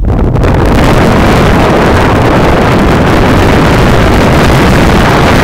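Loud, steady wind noise buffeting the camera microphone during a fast sit-ski run in blizzard conditions.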